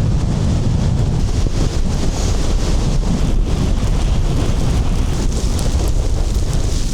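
Blizzard wind blowing hard across the microphone: a loud, steady low rumble.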